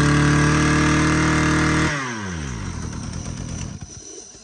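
Mitsubishi TBE 27cc two-stroke brush cutter engine running at high revs. About two seconds in the throttle is let go and the revs wind down with a falling pitch, fading toward the end.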